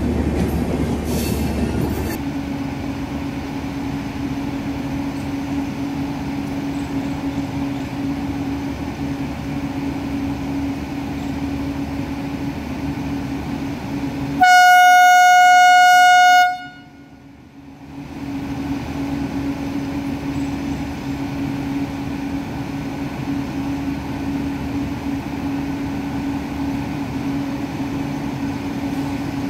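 Electric locomotive moving off slowly from a station with a steady electrical hum. About halfway through it sounds its horn once, a single loud tone lasting about two seconds, after which the hum briefly drops away and returns.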